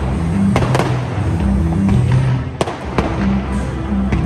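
Fireworks going off: a series of sharp bangs and crackles, the loudest about two and a half seconds in. Music with low sustained notes plays underneath.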